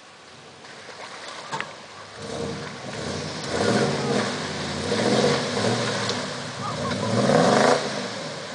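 Pickup truck engine revving hard as the truck works through a mud pit with its wheels churning in the mud, the pitch rising and falling several times. The revs are loudest near the end, then drop off suddenly.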